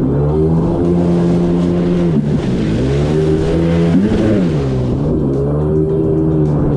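Jet ski engine running at speed. Its note holds steady, then drops and climbs back up about every two seconds as the revs change, with a steady hiss above it.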